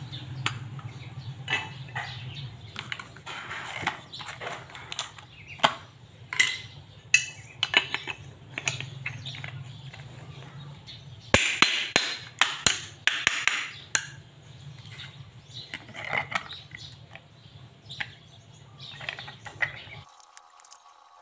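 Irregular metal clinks and taps as an angle grinder's cutting disc, flange nut and guard are handled by hand, with a busy run of clinks about halfway through. A steady low hum runs underneath and cuts off suddenly near the end.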